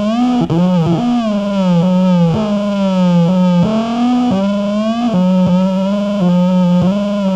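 Live electronic noise music: a sustained pitched synthesizer-like tone that keeps sliding and bending up and down in swoops of a second or so, with a layer of distorted hiss above it.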